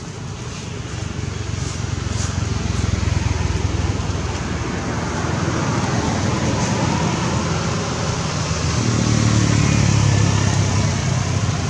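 Steady engine rumble of a motor vehicle, growing louder in the last few seconds.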